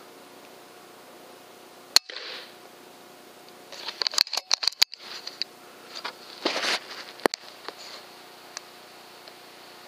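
A single sharp crack of an FX Impact PCP air rifle firing about two seconds in. About two seconds later comes a quick run of metallic clicks and knocks as the rifle is handled and swung, then a brief rustle and one more sharp click.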